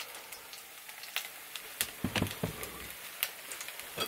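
Potato pancakes frying in vegetable oil in a pan: a steady sizzle with frequent crackles and pops of spitting oil, which the cook has been told comes from water in the oil. A couple of soft knocks about two seconds in.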